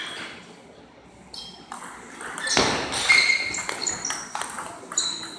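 Table tennis rally: a celluloid/plastic ball clicking off the bats and pinging on the table in a quick run of sharp ticks about every half second, loudest a little past halfway.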